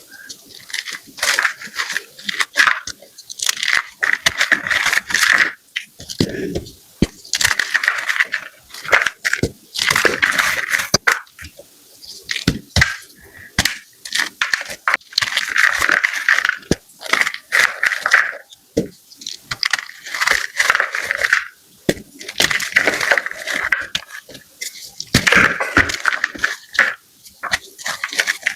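Blocks of gym chalk being crushed: a dense run of sharp crunches and crumbling crackles, coming in bursts with short pauses between them.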